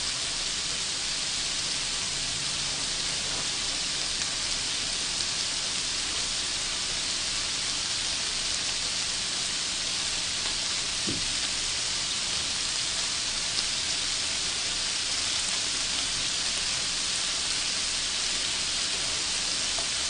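Shrimp wrapped in thin-sliced pork belly sizzling steadily on a hot grill plate, an even hiss like light rain.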